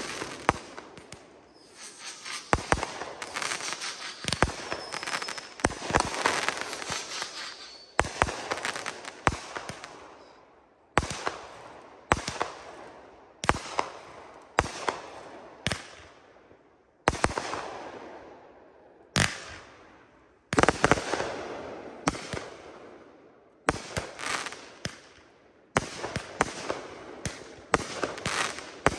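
Consumer aerial fireworks firing shot after shot: sharp bangs about one to two seconds apart, each burst trailing off into crackle. Near the end the shots come in a quicker volley.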